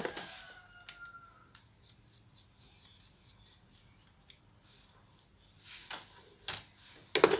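Small clicks and light scraping of a screwdriver undoing the screw that holds a plastic mobile phone charger case shut, with a few louder clicks near the end.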